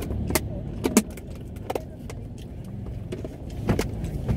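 Sharp clicks and light knocks of plastic food containers and lids being handled, four or five in all, over a steady low hum inside a car.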